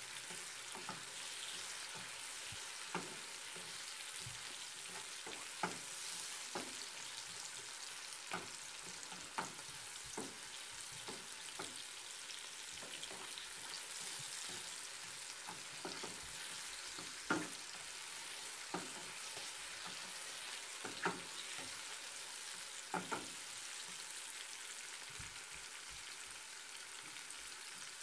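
Sliced onions, green chillies and whole spices sizzling steadily in oil in a non-stick frying pan as the onions brown, with sharp knocks of a spatula against the pan every second or two as they are stirred, loudest a little past the middle.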